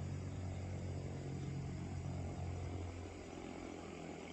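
Low, steady engine drone that eases off about three seconds in, over a faint even hiss.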